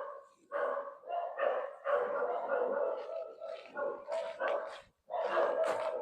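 Dogs barking in a rapid string of repeated barks, with a brief pause about five seconds in.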